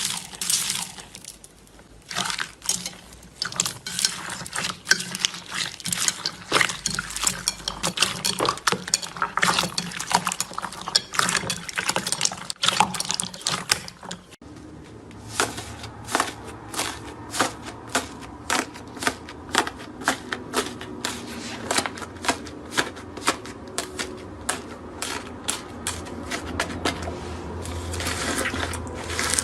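Slime being squeezed and poked by hand, giving a run of wet sticky clicks and pops. The sound changes abruptly about halfway through as another stretch of slime play begins.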